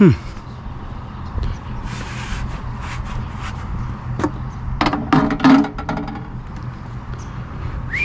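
Pieces of scrap aluminum being handled in a dumpster, with a few sharp knocks and a brief clatter of metal about five seconds in, over a steady low rumble.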